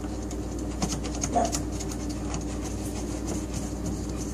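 Steady low hum, with a few faint clicks and taps about a second in as a hand works the ice maker water line onto the refrigerator's inlet valve fitting.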